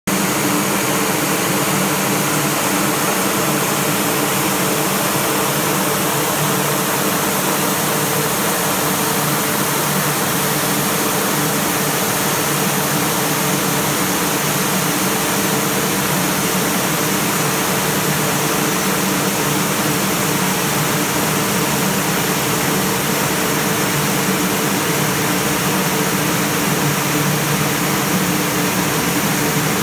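Snow Realm SR-15 T tower fan snow gun running while making snow: a steady, unbroken noise with a low hum beneath it.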